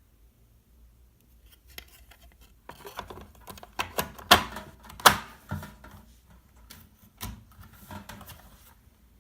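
Hermes Baby portable typewriter being worked by hand: an irregular run of metallic clicks and clacks, with two sharp loud strikes near the middle.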